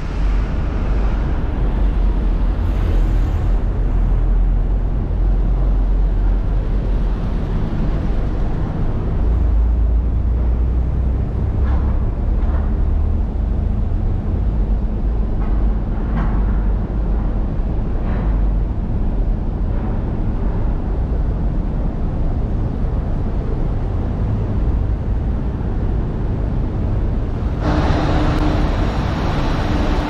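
Steady low rumble of urban traffic and vehicle engines, with a brighter hiss joining near the end.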